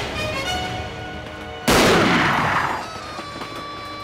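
A single loud gunshot about two seconds in, with a long tail that dies away over about a second, over background film music with held notes.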